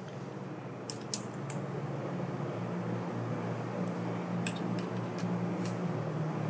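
A few light metallic clicks of a hex key working the button-head bolts on a belt conveyor's side plate, over a steady low hum.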